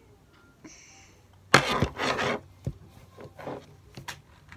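Rustling and rubbing from handling a new wired computer mouse and pulling at its cable, loudest about a second and a half in, then a few light clicks and taps as the mouse is set down on the mouse pad.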